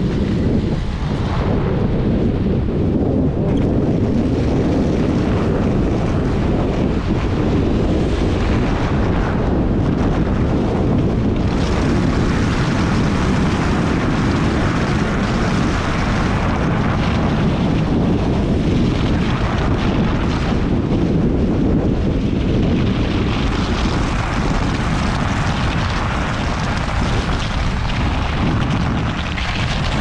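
Steady, loud rushing rumble of wind on the microphone of a handlebar-mounted camera while a fat-tyre electric bike is ridden over snow.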